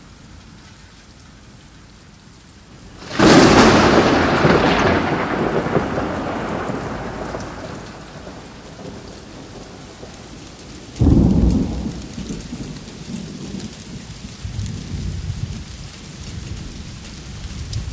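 Steady rain with thunder: a loud thunderclap about three seconds in that rumbles away over several seconds, and a second, deeper clap about eleven seconds in followed by rolling rumbles.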